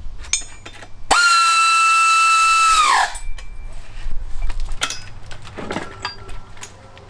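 Pneumatic hand tool on an air hose running, likely driving down the bolts that hold the engine-stand mounting bracket: a loud steady high whine for about two seconds that falls away as it winds down, followed by scattered clicks of handling and a second brief falling whine near the end.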